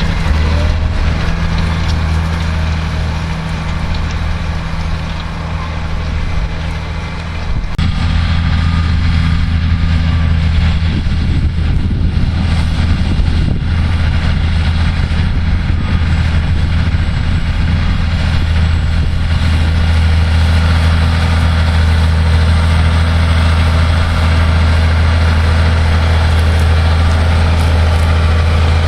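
Massey Ferguson 6490 tractor's six-cylinder diesel engine running steadily while ploughing. The sound dips a little, changes suddenly about eight seconds in, and then runs on steady and slightly louder.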